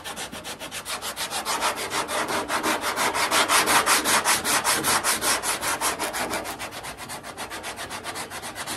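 Hand sanding block with 80-grit paper rubbed quickly back and forth over body filler on a 1968 Pontiac Firebird front fender, about six strokes a second and louder in the middle. The filler is being cut down flat to a taped body line.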